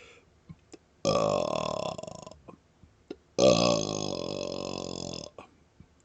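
A man's deliberate belly burps, shaped into drawn-out 'oh' and 'ah' vowel sounds. Two long burps: the first comes about a second in and lasts just over a second, and the second starts after about three seconds and lasts nearly two. Each starts abruptly and fades away.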